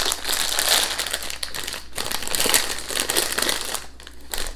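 Plastic crisp packet crinkling as it is pulled open and handled, a dense continuous rustle that dies away near the end.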